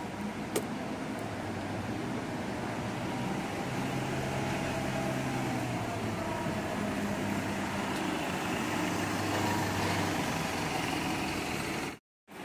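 City bus engine running as the bus pulls away and drives slowly past at close range, growing louder as it comes by. There is a single click about half a second in, and the sound drops out abruptly near the end.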